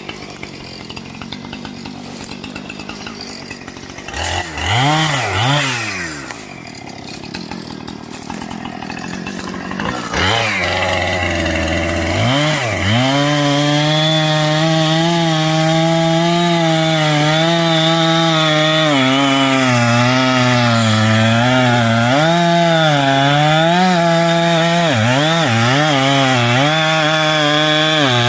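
Two-stroke chainsaw revved twice, then held at full throttle from about ten seconds in, its pitch dipping and recovering repeatedly as it bogs under load while cutting through wood.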